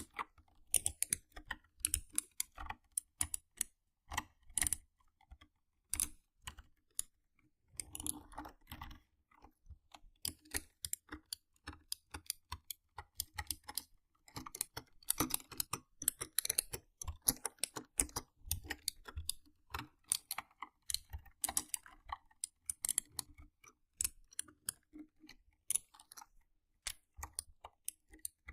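Mechanical keyboard being typed on: irregular clicking keystrokes, sometimes in quick runs and sometimes spaced out.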